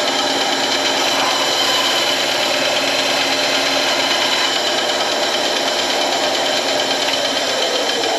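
A woodworking power tool running steadily with a constant high whine. Near the end one of its lower tones slides down in pitch.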